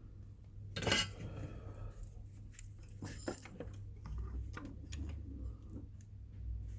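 Light metallic clinks and clicks of small tools and parts being handled on a workbench, with one louder clatter about a second in, over a steady low hum.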